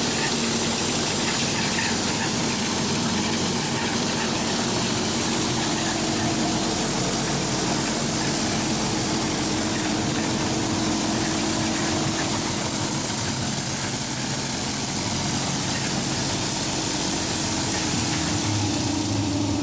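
DoAll ZEPHYR ZW-3620 36-inch high-speed vertical band saw running steadily in its medium speed range: an even machine hum with a broad whirring hiss from the blade and drive.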